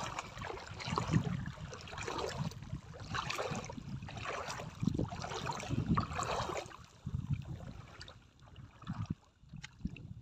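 Sea water sloshing and splashing in irregular surges, with wind noise on rough water. It quietens about seven seconds in, leaving a few small splashes and clicks.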